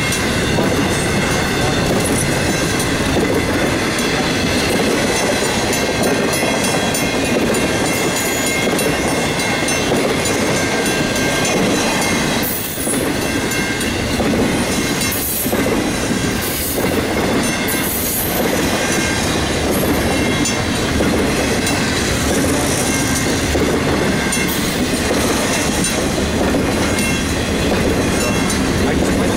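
Intermodal freight train's container cars rolling past close by: a steady, loud rumble and clatter of steel wheels on the rails, with a brief dip in the noise about halfway through.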